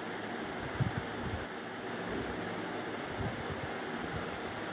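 Steady background hiss with a light knock about a second in and a few softer ones, from a plastic vegetable-chopper bowl and its motor head being handled and fitted together.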